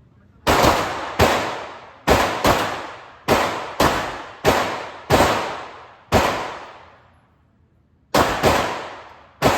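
Handgun shots at an indoor range: about a dozen single shots at an uneven, deliberate pace, each ringing off briefly in the range. There is a pause of about two seconds after the ninth shot before the next string starts.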